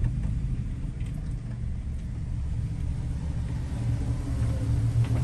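Low, steady engine and road rumble of an off-road vehicle heard from inside its cab while driving slowly; it swells slightly near the end.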